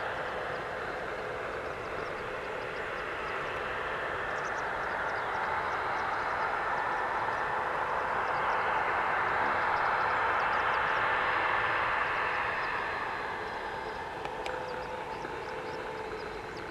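Twin General Electric CF34 turbofans of a Bombardier Challenger 605 at taxi power: a steady rushing hiss with a faint whine in it, growing louder toward the middle and easing off near the end as the jet rolls along the taxiway.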